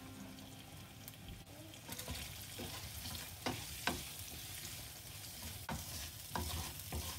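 Cubed potatoes frying softly in oil in a nonstick pan, stirred with a wooden spatula. From about two seconds in, the spatula scrapes and taps against the pan several times over the sizzle.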